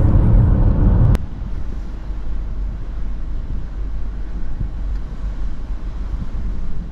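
Road and wind rumble of a moving car, heard from inside the car. It is loud at first, then drops abruptly with a click about a second in, leaving a steadier, quieter low rumble.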